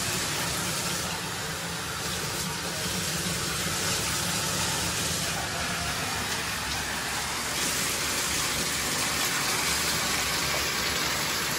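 Water running steadily into a bathtub, splashing as a soapy dog is rinsed in the tub.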